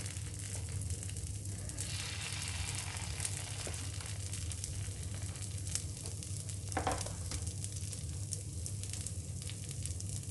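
Dosa batter sizzling in oil and butter in the cups of an appe pan, a steady fine crackle over a low steady hum.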